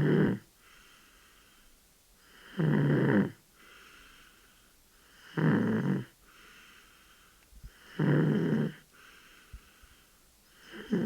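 A 13-month-old baby snoring in sleep: a loud snore about every three seconds, with a softer breath sound between the snores.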